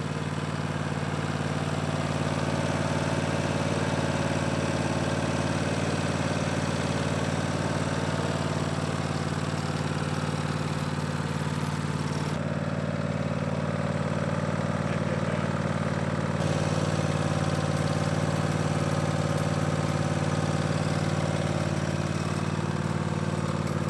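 Zero-turn riding lawn mower's engine running steadily.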